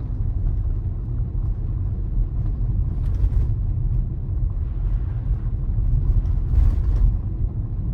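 Steady low road and tyre rumble inside a Tesla Model Y's cabin as it drives slowly on a snow-packed street.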